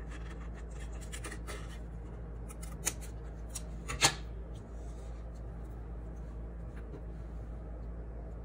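Scissors snipping through crayon-coloured paper in short cuts, a few more snips near three seconds, and a sharp click about four seconds in. After that only a low steady hum remains.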